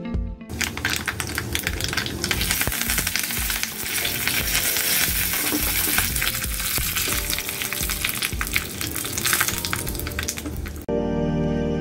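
Tempering frying in hot oil in a small tempering pan: a dense sizzle with rapid crackling pops as the mustard seeds splutter, with dry red chillies, dal and curry leaves frying in the oil. The sizzle cuts off suddenly near the end and background music takes over.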